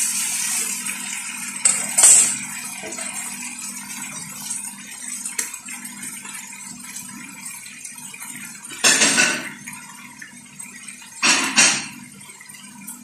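Marinated chicken breast frying in a pan, a steady sizzle that is loudest at first and slowly dies down. Two sharp clatters of a utensil on the pan come about two seconds in, and a few louder noisy bursts come near the end.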